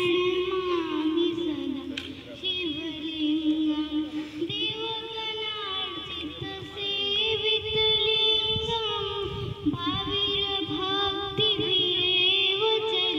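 A young girl singing solo into a microphone, holding long, drawn-out notes, amplified through a loudspeaker.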